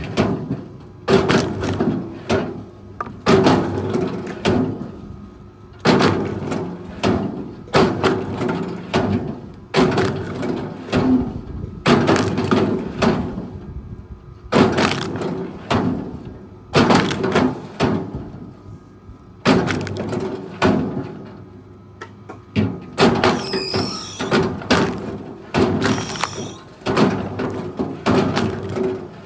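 Repeated heavy knocks with splintering wood cracks, about one a second, over a steady low machine hum.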